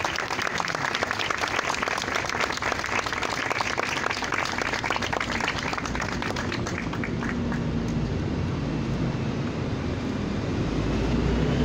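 Crowd applauding, a dense patter of many hands clapping that thins out after about seven seconds, with a low rumble rising near the end.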